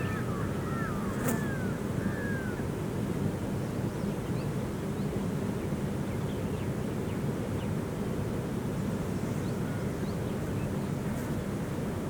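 Outdoor ambience: a steady low background rumble with a few short, downward-curving bird chirps in the first two or three seconds and a few fainter ones later.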